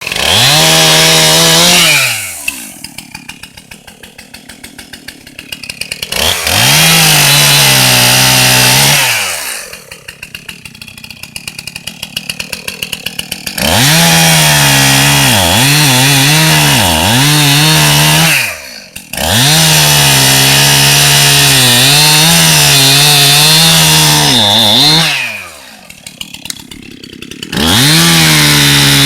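Two-stroke chainsaw cutting a downed cherry log. It runs at full throttle, its pitch dipping as the chain bogs in the wood, and three times it drops back to a ticking idle before revving up again.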